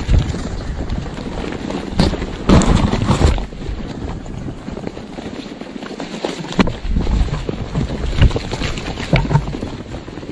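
Vultures jostling at a carcass: irregular thumps and rustling bursts, the loudest a cluster about two to three seconds in, over wind buffeting the microphone.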